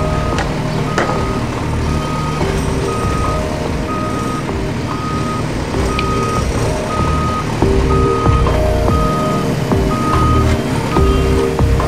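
Electronic reversing-alarm style beeping, a short high beep about twice a second, over a low engine-like rumble and lower tones that shift in pitch.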